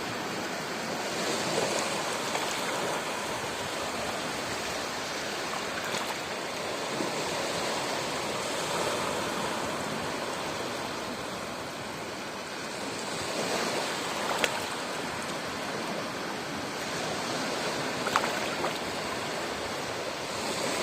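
Ocean waves washing in: a steady rushing surf that swells and eases slowly every few seconds. Two short sharp clicks stand out, one about two-thirds of the way through and one near the end.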